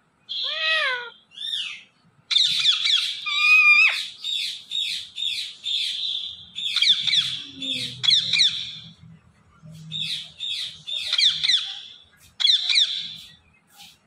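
Indian ringneck parakeet calling and chattering: two drawn-out calls in the first couple of seconds, then long runs of fast, rapid chirps with short breaks.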